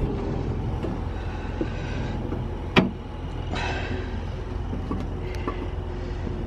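A few knocks as an aluminium intake manifold is handled and worked into place in the engine bay, one sharp knock about three seconds in, over a steady low rumble.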